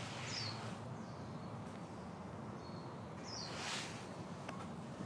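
A bird calling twice, about three seconds apart: each call a short high falling note, over steady outdoor background noise.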